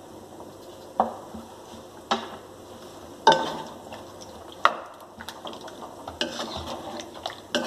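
Wooden spoon stirring chicken gravy in a large metal pot, knocking against the pot about once a second, then quicker, lighter scrapes and taps near the end.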